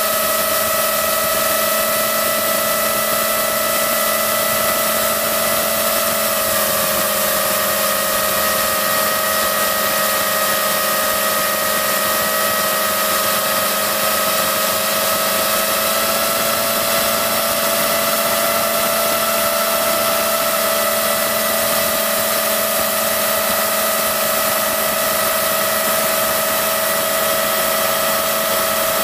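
FPV quadcopter's electric motors and propellers whining steadily over a hiss of rushing air, heard from a camera mounted on the drone itself. The pitch dips a little about six seconds in and creeps back up later.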